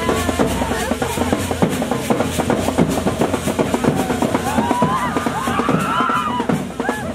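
Loud music with a fast, driving drum beat. Sliding pitched notes rise over the drums about five seconds in.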